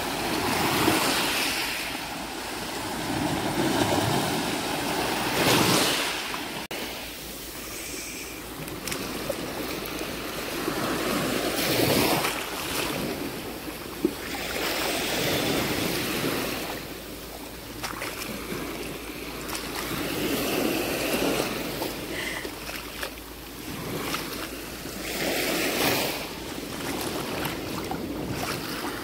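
Small sea waves breaking and washing up a pebbly sand shore, the surf swelling and falling away every few seconds.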